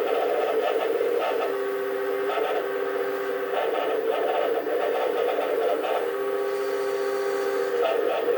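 Mitsubishi RO-series flat-bed microwave oven running: a steady hum with an irregular rattle (karakara) that comes and goes every second or so. The rattle is an abnormal noise that developed after about ten years of use.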